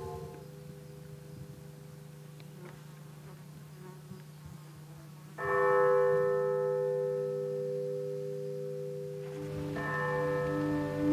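Large bells struck one at a time, ringing to call to prayer and meditation: a loud stroke about five seconds in that rings on and slowly fades, then a second stroke with a lower bell about four seconds later. A steady low buzz, like flying insects, runs underneath.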